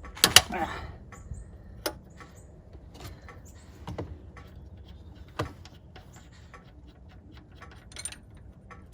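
Hand tools working on the metal fuel line fittings of a Detroit DD15 diesel engine: a sharp metallic clank about a quarter second in, then scattered lighter clicks and taps.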